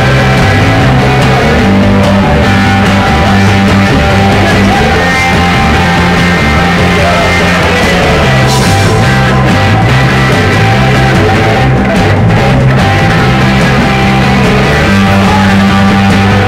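Live rock band playing loud, with electric guitars, electric bass and a drum kit.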